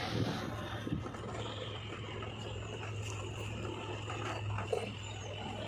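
Diesel engine of earthmoving machinery running steadily with a low hum and a thin high whine over it, and a few faint knocks and clicks.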